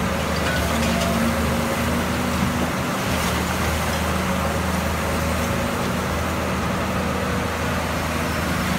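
Cat 320B hydraulic excavator's six-cylinder turbo diesel engine running steadily under load while it digs in rubble and starts to swing. The low engine hum stays even throughout.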